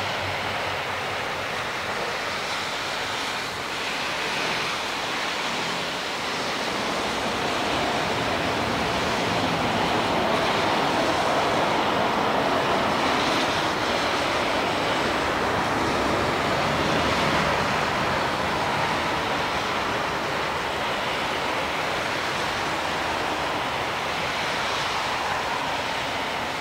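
Boeing 787-8 GEnx turbofan engines in reverse thrust during the landing rollout, a loud steady jet rush that swells as the airliner comes past and eases off somewhat near the end.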